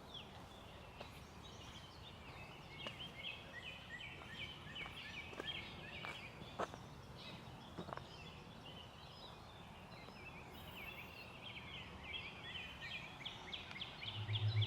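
Birds chattering busily, a dense run of quick overlapping chirps, with a couple of sharp clicks in the middle. Low, steady music tones fade in just before the end.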